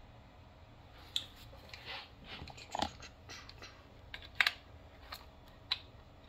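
Scattered light clicks, taps and scrapes as a PepperBall TCP launcher is handled and a thin metal rod is worked into it, the sharpest tap about four and a half seconds in.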